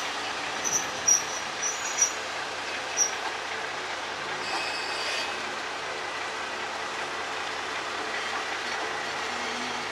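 KiHa 37 diesel railcar rolling slowly into a station with its diesel engine running under a steady rumble. Short high brake squeals come several times in the first three seconds, and a longer high squeal comes about halfway through.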